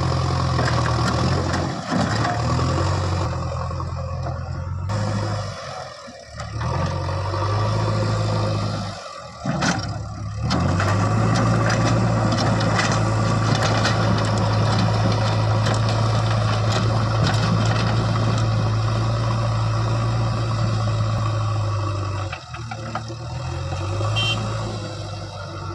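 Diesel engine of heavy machinery running with a steady low note, broken by a few brief drops in level.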